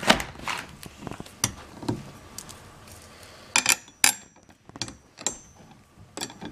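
Scattered metallic clicks and clinks of steel bolts and an Allen wrench against the pole's steel mounting plate as the bag stand's main pole is bolted to its plastic base. The loudest knock comes right at the start, with a few sharper clinks about three and a half to four seconds in.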